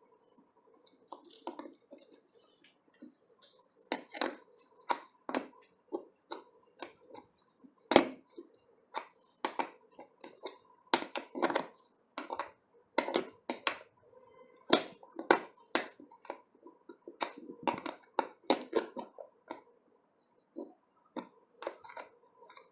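Irregular sharp clicks and taps of small metal parts being handled: an L-clamp, washer and nut being fitted onto a motorcycle seat-mount bolt.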